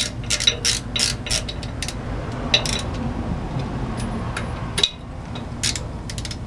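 Socket ratchet clicking in short, irregular runs with a few metal clinks, as new ARP bolts are run in and tightened.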